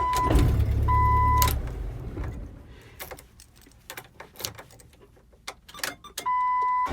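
A Jeep Wrangler's engine runs and then dies away about two seconds in as the key is turned off. Light clicks of the key and ignition switch follow. A steady electronic warning chime beeps three times: at the start, about a second in, and again near the end.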